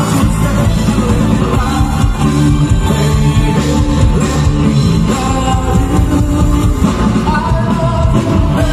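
Live band played through a PA system: a man singing into a microphone over electric guitar, drums and keyboard, with a heavy, steady bass.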